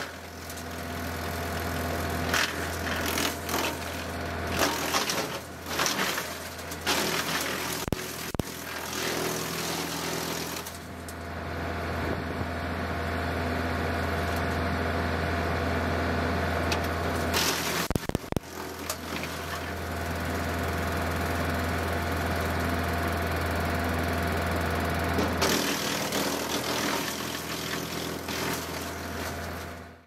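John Deere 2038R's three-cylinder diesel running steadily, driving a Frontier WC1105 PTO wood chipper. Limbs being fed through make bursts of cracking and crunching, thick in the first ten seconds and again near the end, with smoother stretches of engine and chipper hum between. The sound fades out at the very end.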